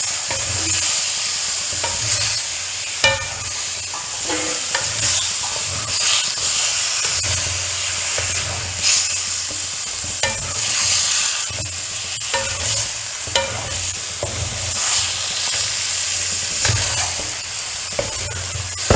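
Chicken pieces sizzling in oil and spice masala in a kadai while a spoon stirs them, scraping through the pan. The spoon knocks against the metal now and then.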